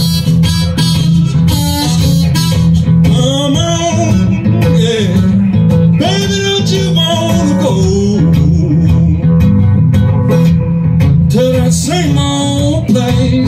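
Live acoustic blues: a steel-string acoustic guitar strummed in a steady driving rhythm, with a rack-held harmonica playing held, bending notes over it.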